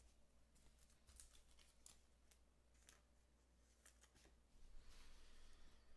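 Faint ticks and soft slides of glossy trading cards being handled, flicked and set down on a pile, with a brief rustle near the end as a stack is picked up.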